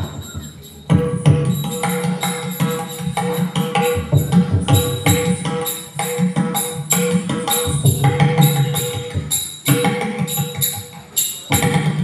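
Ottan Thullal percussion accompaniment: a mridangam drum and ilathalam hand cymbals start suddenly about a second in and play a quick, steady rhythm of strokes, with the cymbals ringing over the drum.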